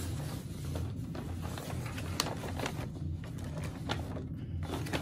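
Hands turning and repositioning a sheet of embroidery stabilizer in its hoop. Soft rustling and scattered light taps and clicks come over a steady low hum.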